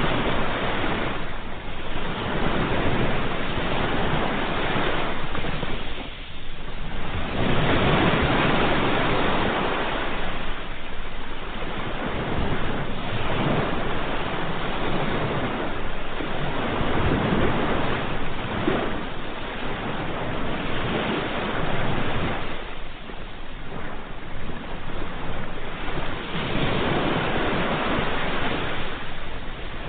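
Sea waves breaking and washing on a shore, a continuous rush that swells and eases every few seconds as each wave comes in.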